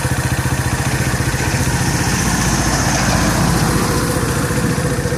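Keeway RKV 125's single-cylinder four-stroke engine idling with an even beat, rising briefly in revs around the middle before settling back to idle.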